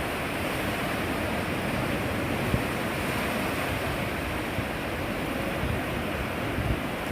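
Sea waves washing onto a beach in a steady, continuous rush of surf.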